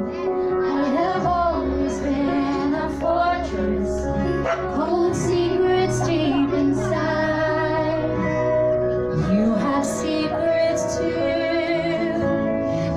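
Music: a song with a female singing voice over instrumental backing and a steady bass line.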